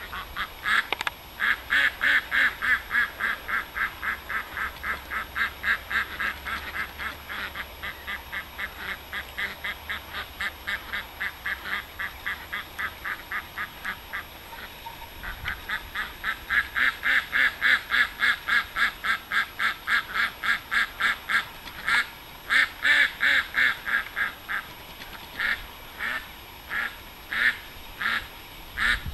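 Indian Runner duck quacking in a fast, unbroken run of about four quacks a second, complaining. The calls stop briefly about halfway through, then start again and become sparser and irregular near the end.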